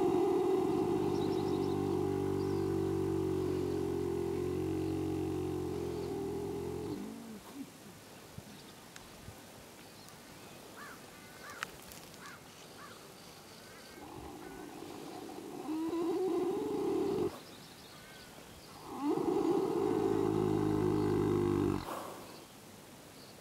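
Horse snoring in its sleep: long, low, buzzing snores with pauses between them. The first lasts about seven seconds, then two shorter snores follow after a quiet stretch in the middle.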